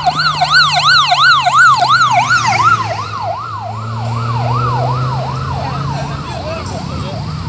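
Police motorcycle siren in a fast yelp, about three up-and-down sweeps a second, loud for the first three seconds and then fading away. A steady low engine hum runs underneath.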